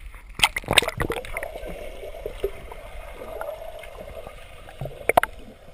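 Pool water splashing against a waterproof camera as it goes under, then the muffled gurgling of being underwater in a swimming pool, with a couple more sharp splashes about five seconds in.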